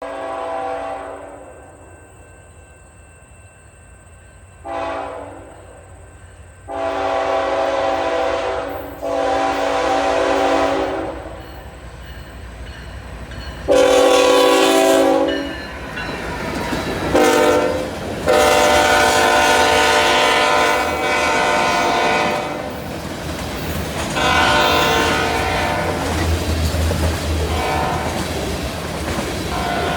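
A freight locomotive's air horn sounds a series of short and long blasts, getting louder as the train approaches, with one long blast in the second half. The train's rumble and wheel clatter grow underneath, and a locomotive's low engine throb rises near the end as it passes.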